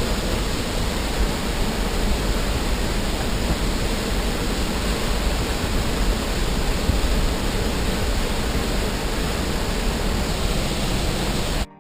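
Tumalo Falls, a waterfall, making a steady, even roar of falling water that stops suddenly near the end.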